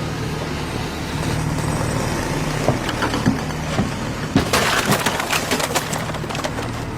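A heavy engine running steadily under scattered cracking and crunching, which thickens into a quick burst of sharp cracks about two-thirds of the way through, like material splintering or breaking up.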